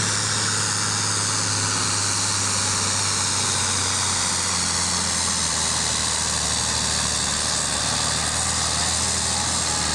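A John Deere diesel farm tractor running at full throttle under heavy load as it pulls a weight-transfer sled, its engine note steady and loud throughout and the stack blowing black smoke.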